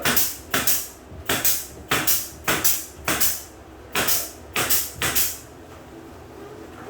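Hammer striking wood or nails over and over, about two blows a second at an uneven pace, stopping about five seconds in.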